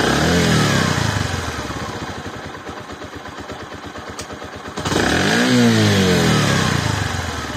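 Bajaj Platina H-Gear's single-cylinder four-stroke engine idling and revved twice: once right at the start and again about five seconds in, each time rising in pitch and then falling back to idle.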